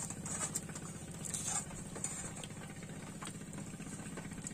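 A small engine running steadily with an even, fast pulse, with a few light clicks and taps over it.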